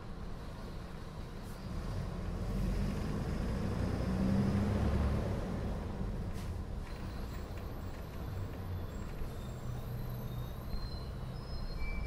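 Mercedes-Benz O500M city bus's diesel engine heard from inside the bus. The rumble swells as the bus pulls harder, about two seconds in, peaks around the middle, then settles back.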